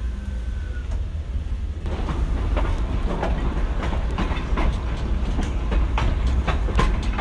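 Heritage steam train's carriage wheels clicking and knocking over rail joints and points as it rolls slowly out, over a steady low rumble. The clicks start about two seconds in and come faster as it goes.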